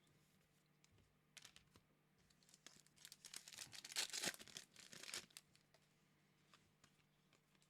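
Foil trading-card pack wrapper being torn open and crinkled: a run of short tearing and crackling sounds, loudest around the middle, over a faint steady electrical hum.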